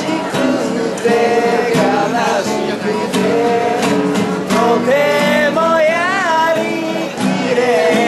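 Singing accompanied by a strummed nylon-string classical guitar.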